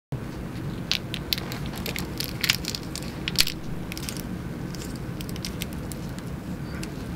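Gloved hands twisting and pulling the plastic cap off a syringe: a run of small plastic clicks and crackles mixed with glove rustle, the sharpest about three and a half seconds in, over a steady low background hum.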